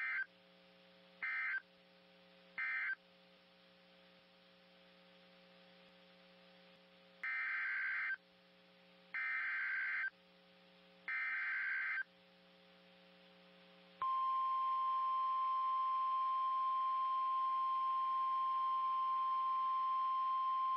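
Emergency Alert System data bursts: three short buzzy end-of-message bursts, then three longer header bursts about two seconds apart. About 14 seconds in, a steady single-pitched weather radio alert tone begins, signalling a new severe thunderstorm warning.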